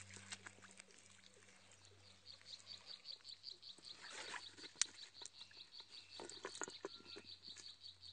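Faint, high-pitched animal call pulsing rapidly and evenly, about six pulses a second, starting about two seconds in. Soft rustling and ticks of handling are heard under it, with one sharp click near the middle, over a steady low hum.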